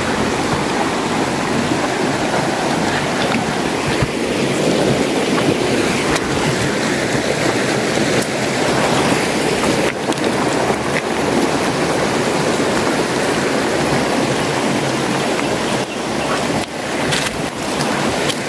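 Steady rushing of a shallow, rocky river, with a few knocks near the end.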